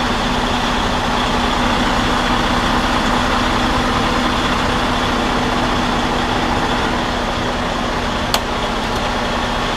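Semi truck's diesel engine idling steadily, a constant hum under a broad rumble, with one sharp click about eight seconds in.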